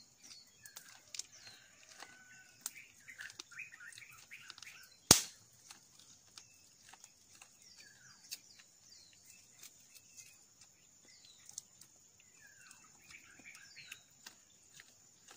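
Small birds chirping in bursts, with scattered sharp clicks and crunches from eating grilled corn on the cob, over a faint steady high whine. One loud knock about five seconds in.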